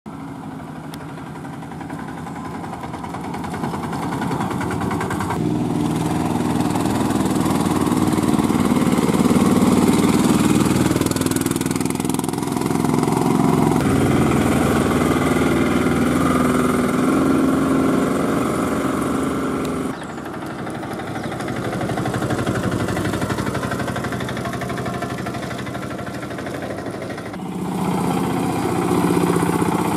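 Auto rickshaw engine running as it drives by, growing louder to its peak around ten seconds in. The sound jumps abruptly a few times, about five, twenty and twenty-seven seconds in.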